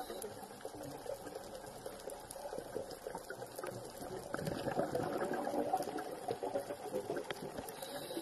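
Underwater bubbling and crackling picked up through a camera's waterproof housing, a busy hiss of small pops and gurgles that grows louder about halfway through.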